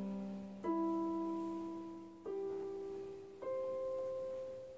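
Portable electronic keyboard on a piano voice, played slowly by a beginner: single held notes, a new one every second or so, each fading away before the next.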